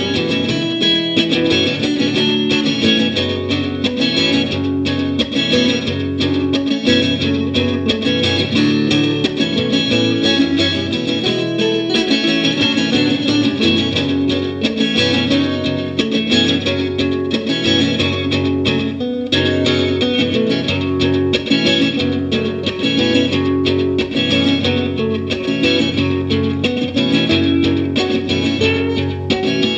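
Guitar music: a continuous run of plucked guitar notes.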